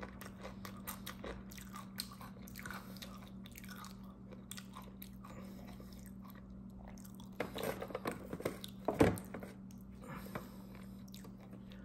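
Close-up mouth sounds of chewing and biting a fish torta sandwich: soft bread with small crunches, louder around seven to nine seconds in. A faint steady hum runs underneath.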